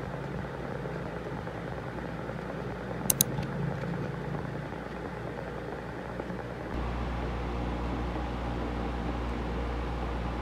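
Steady background hum with two sharp clicks in quick succession about three seconds in. About two-thirds of the way through, the hum gives way to a louder, deeper rumble.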